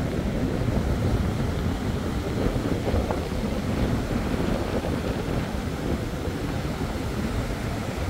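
Strong wind buffeting the microphone in uneven gusts, over the steady rush of breaking surf.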